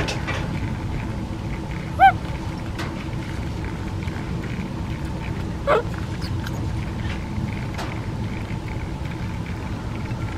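Baby monkey giving two short high squeaks about four seconds apart while sucking milk from a bottle; the second one rises in pitch. A steady low rumble runs underneath.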